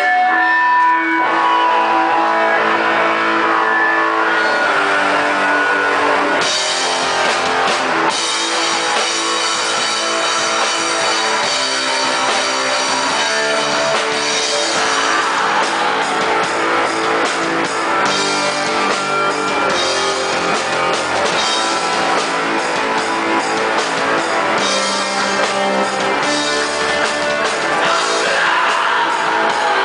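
Black metal band playing live: a guitar opening, then about six seconds in the full band with drums comes in and plays on densely.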